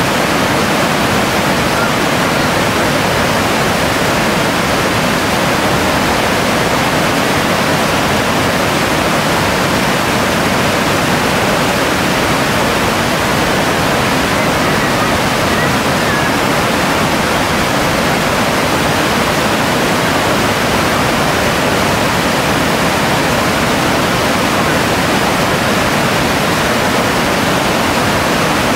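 Rushing whitewater of a river rapid: a steady, unbroken rush of water.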